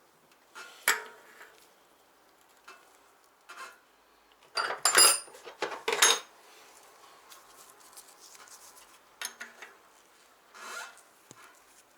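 Metal tools and bicycle hub parts being handled on a workbench: scattered clicks and knocks, with a quick run of ringing metal clinks about five seconds in.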